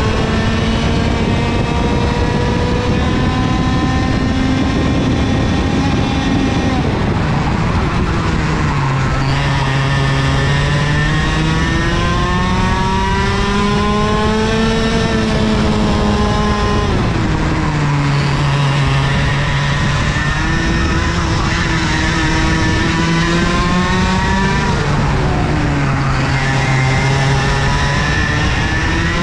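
IAME KA100 two-stroke kart engine at full race pace, heard from onboard: its note climbs steadily along the straights and falls sharply three times as the driver lifts and brakes for corners.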